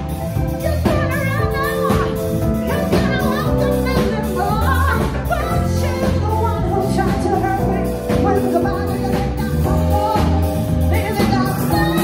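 A singer with a live four-piece band sings into a handheld microphone, backed by keyboard, bass guitar and drum kit playing a steady groove.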